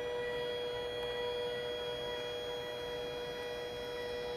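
Canon SELPHY CP1500 dye-sublimation photo printer whining steadily as it feeds the paper through to print one of its colour layers.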